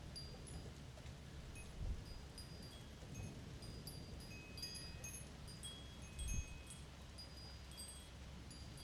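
Wind chimes ringing irregularly, scattered clear metallic tones struck at random by the wind, over a faint low rumble. There are brief low thumps about two seconds in and again after six seconds.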